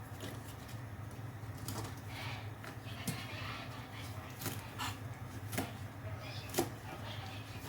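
Scattered knocks and clicks of kitchen utensils being handled, about six irregular strikes over a steady low hum.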